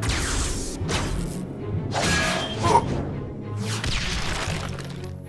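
Cartoon action music with sound effects of whooshes and hits, three rushing surges about two seconds apart as flaming projectiles fly and smash apart.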